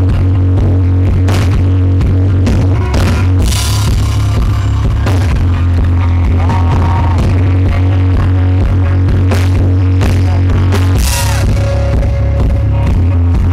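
Live rock band playing an instrumental passage: electric guitar over bass and a drum kit, steady and loud. The recording is overloaded and distorted.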